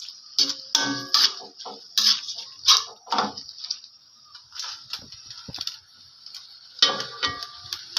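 A cooking utensil knocking and scraping against a frying pan while shrimp are stirred in garlic butter. The knocks are irregular, a few with a short metallic ring, over a steady frying sizzle.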